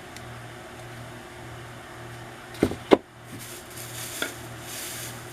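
Small gift items being handled: two sharp knocks close together a bit past halfway, then rustling and a small click, over a steady low hum.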